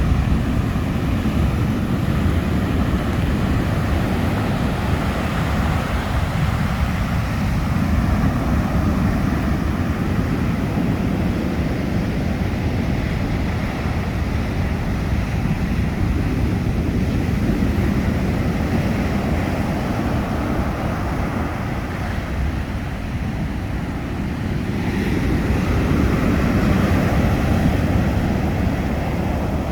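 Ocean surf breaking on the shore: a continuous, deep, rushing roar that slowly swells and eases, growing louder for a few seconds near the end.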